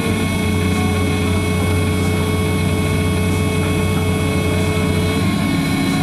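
Excavator diesel engine running under load with the hydraulics held over relief, heard from inside the cab, while the pin-grabber quick coupler is cycled to unlocked. A steady whine starts just after the opening and stops about five seconds in, over the coupler-open safety buzzer.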